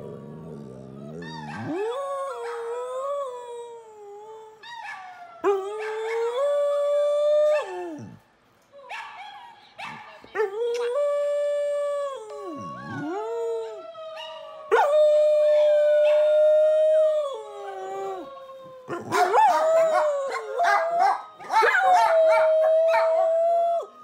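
A pit bull, chihuahua and Pomeranian mix dog howls with its head thrown back: about five long, wavering howls with short breaks between them. Near the end the howling thickens into overlapping voices as a second dog joins in.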